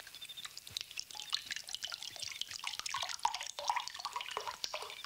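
Liquid poured from a glass bottle into a small glass tumbler, with irregular splashing and drips.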